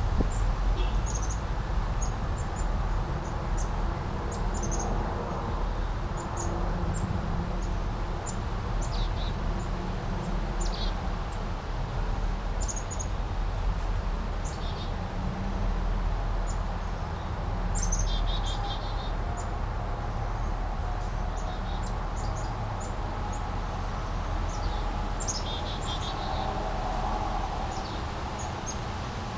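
Small brook flowing with a steady babbling rush, while small birds chirp in short, high notes scattered throughout.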